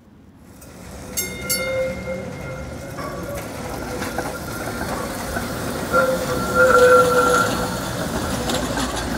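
SEPTA Kawasaki trolley car rolling past at close range as it pulls out of the loop. Its rumble builds over the first few seconds, with steady tones from the running gear that swell loudest about seven seconds in.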